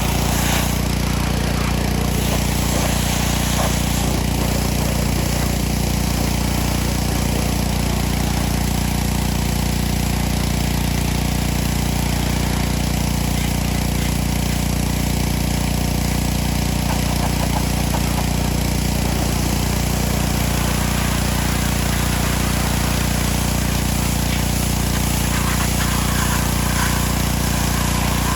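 Gas-engine pressure washer running steadily, its small engine humming under the hiss of the water spray.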